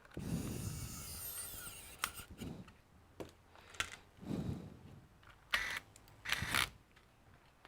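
Small electric screwdriver running for about two seconds, then sharp clicks and a few short bursts of tool and parts handling, as a laptop is screwed back together.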